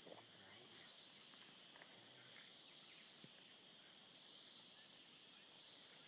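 Faint forest background: a steady, high-pitched insect drone.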